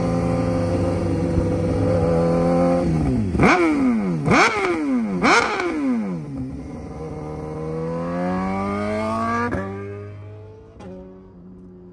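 BMW HP4's inline-four engine through a full exhaust system, held at raised revs, then blipped sharply three times about a second apart. The revs then climb slowly, break off abruptly near the end and settle to a quieter, lower idle.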